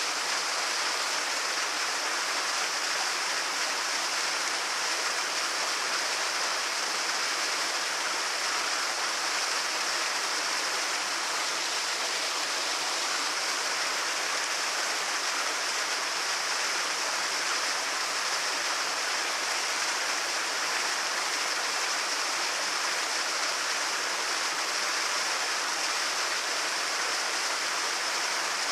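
A medium-sized waterfall pouring into a lake, a steady hiss of falling and splashing water with no change in level.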